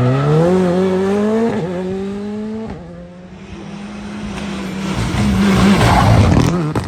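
Rally car engine at full throttle, its pitch climbing with a gear change about a second and a half in, then holding before it fades. It swells loud again near the end.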